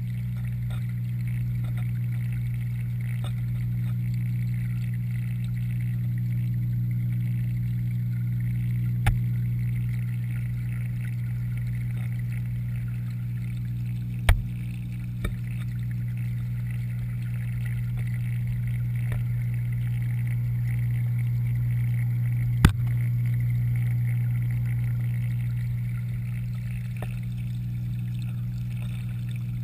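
Steady low hum of a submerged pond pump and filter heard underwater, with a few sharp knocks scattered through it.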